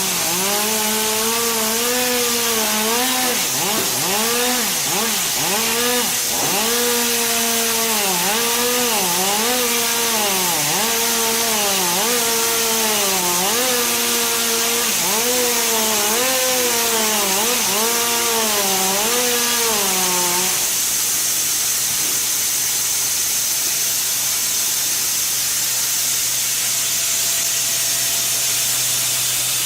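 Power saw running, its pitch sagging and recovering again and again as it cuts into wood. The saw stops about two-thirds of the way through, leaving a steady hiss.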